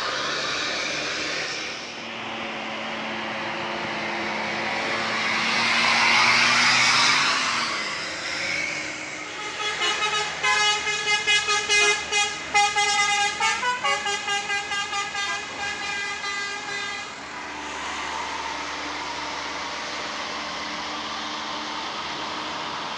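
Basuri 'telolet' multi-tone bus horn, starting about ten seconds in and playing a rapid pulsing tune for about seven seconds. Before it comes a rising and falling rush of passing bus engine and road noise, and after it a steady rumble.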